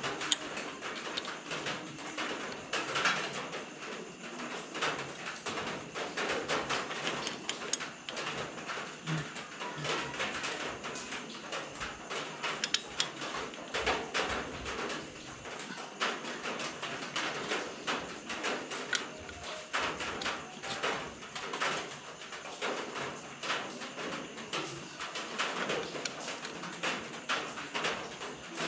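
Small metallic clicks and taps from an Allen key working the mounting bolts of a metal heel-guard plate on a motorcycle, with birds calling in the background.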